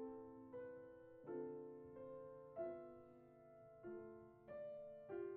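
Soft background music on solo piano: slow notes and chords, each struck and left to ring out and fade.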